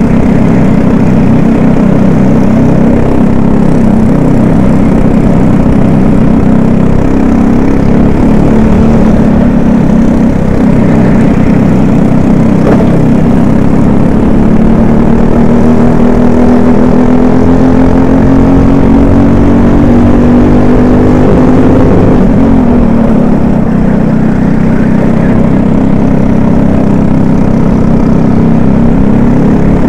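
Racing kart's single-cylinder engine running hard, heard from the driver's seat, its revs rising and falling with the corners: a long climb down a straight ends in a sharp drop about two-thirds of the way through, then the revs climb again.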